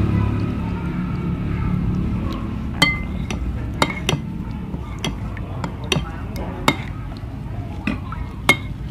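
Metal spoon stirring thick soup in a ceramic plate, knocking against the plate in about eight sharp, irregular clinks from about three seconds in. A low rumble fades out over the first couple of seconds.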